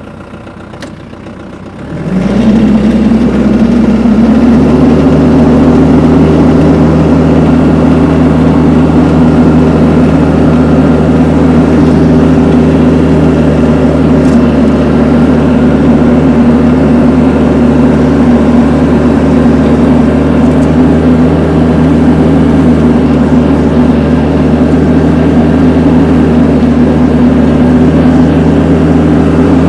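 Tractor engine revving up about two seconds in, then running steady at high revs under load while dragging a heavy log uphill.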